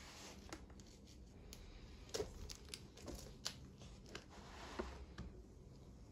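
Sketchbook pages being handled and turned: faint paper rustling with a series of light clicks and taps, the loudest a little after two seconds in and again near five seconds.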